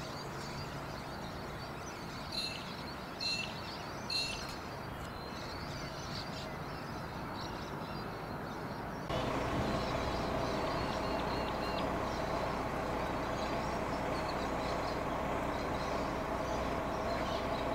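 Outdoor background of steady traffic hum with birds chirping, three short bird calls standing out a few seconds in. About halfway through the background jumps suddenly to a louder, steady hum, with faint bird chirps over it.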